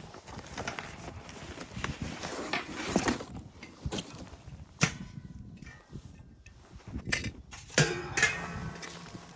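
Irregular knocks and clunks over rustling, with a sharp knock about five seconds in and a short squeaky scrape near eight seconds.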